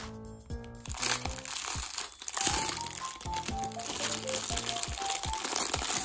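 Thin clear plastic bag crinkling as a small toy is handled and pulled out of it, starting about a second in, over light background music with a plucked melody.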